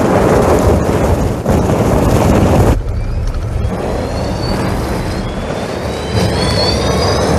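Audi e-tron electric SUV driving up a snow-covered slope: a loud rush of tyre and snow noise, then, after a sudden change about three seconds in, several high whining tones rising in pitch together, the whine of its electric motors as it climbs.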